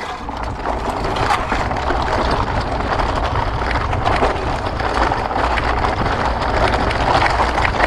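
Sport-On Explorer off-road handcycle rolling down a rutted, rocky dirt trail: fat knobby tyres crunching over loose stones, with many small rattles from the frame and suspension over a steady low rumble.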